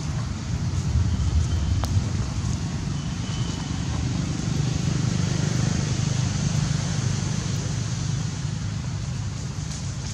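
Steady low outdoor rumble with a light hiss over it, with one sharp click about two seconds in.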